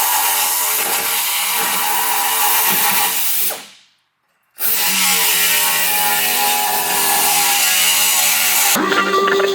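A power tool cutting through a Jeep's factory roll cage, running steadily. It fades out a few seconds in, stops for about half a second, then starts again. Near the end it gives way to guitar music.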